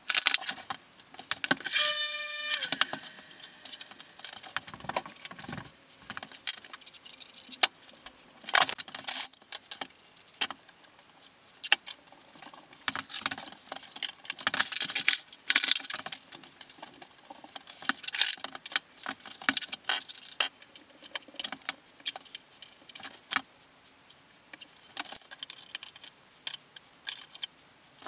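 Sped-up sounds of tiling work: a rapid, irregular jumble of clicks, clinks and scrapes from ceramic subway tiles and tools being handled and set on the wall, with a brief high squeak about two seconds in.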